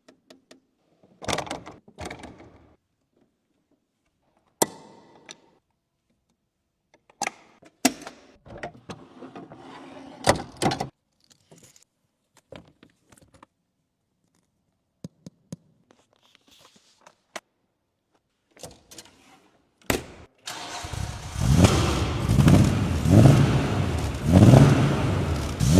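Scattered clicks and thunks, then about twenty seconds in the Aston Martin DB5's straight-six engine starts and is revved repeatedly, rising and falling.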